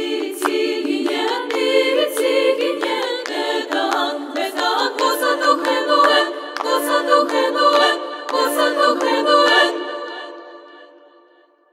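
Women's choir singing a cappella over sharp rhythmic hand claps. The claps stop about nine and a half seconds in, and the last sung chord fades away to silence.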